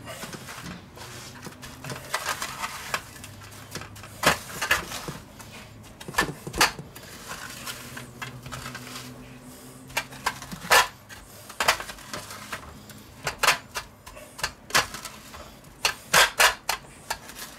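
Hands pressing a bacon-wrapped cutlet into panko breadcrumbs in a stainless steel tray: crumbs rustling, with irregular sharp clicks and clatters against the metal trays, several in quick succession near the end.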